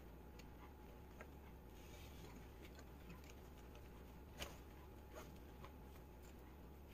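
Near silence with a few faint small clicks, one a little sharper about four and a half seconds in, from a fabric bag strap and its slider and clips being adjusted by hand.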